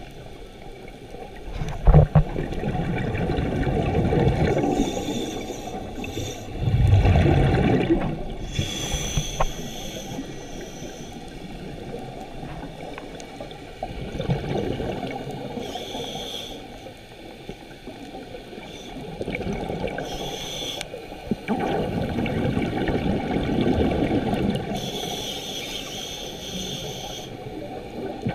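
Scuba breathing heard underwater: short hissing inhalations through a regulator alternating with longer bubbling, rumbling exhalations, in slow cycles every few seconds.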